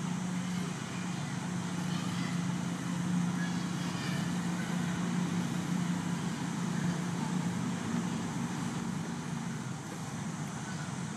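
Steady low hum over an even background noise, like a distant running engine or traffic, with no distinct events.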